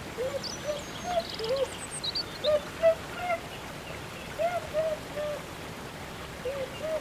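Outdoor animal calls: many short, arched calls repeating irregularly a few times a second, with higher bird chirps scattered over them.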